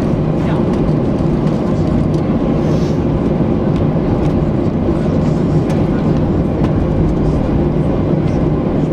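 Airbus A321 cabin noise during landing: a steady roar of engines and rushing air with a low rumble and a constant low hum underneath.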